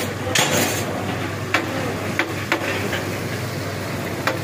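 Metal spatula and slotted skimmer clinking against a large steel frying pan (karahi) as masala-coated fish is stirred while it deep-fries, with a steady sizzle of hot oil under about half a dozen sharp metal clinks.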